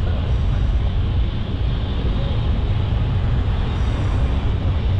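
Steady low rumble and hiss from a bicycle ride along city streets: wind on the microphone and street traffic.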